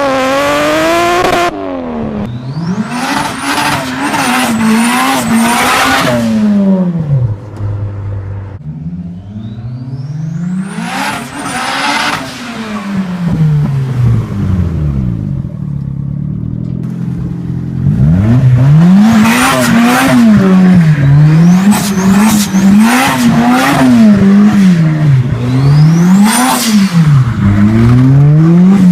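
Turbocharged car engine revved over and over, its pitch climbing and falling with each blip and a rising turbo whistle on many of the revs. In the last third the revs come quickly and regularly, about one every second and a half.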